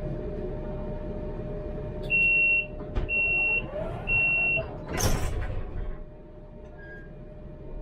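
Tram door-closing warning: three high beeps about a second apart, then the doors slide shut with a loud thump about five seconds in, over the tram's steady hum.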